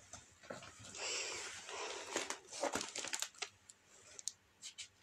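Close handling noise: rustling and crinkling with many sharp clicks, busiest from about one to three and a half seconds in, then a few scattered clicks.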